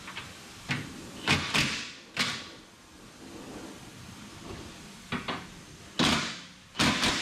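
Several sharp metallic bangs and clatters, each ringing briefly, as an aluminum skid plate is pushed up against a car's subframe and its bolts are worked with a cordless impact driver. There is a cluster in the first two seconds and another, louder, in the last second and a half.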